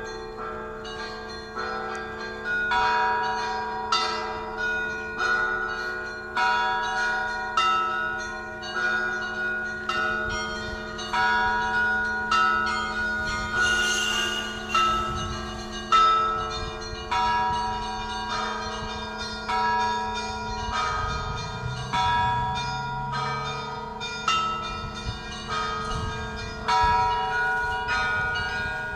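Russian Orthodox church bells rung by hand: several bells of different pitches struck in a quick, repeating rhythmic pattern, each strike ringing on, over the long hum of a larger bell. A deeper bell sounds about two-thirds of the way through.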